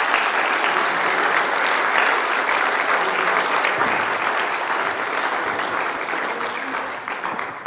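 Large indoor audience applauding steadily, the clapping dying away near the end.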